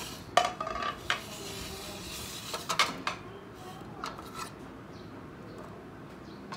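Dishes and utensils knocking and clinking, with a few sharp knocks, some with a short ring; the loudest about half a second in and near the three-second mark, then only faint handling noise.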